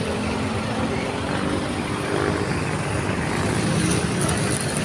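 Street traffic: the steady engine drone and tyre noise of van-based passenger jeepneys and minibuses driving past.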